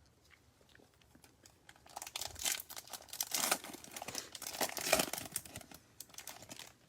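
Crinkling and rustling of a foil trading-card pack wrapper and cards being handled, starting about two seconds in and easing off near the end.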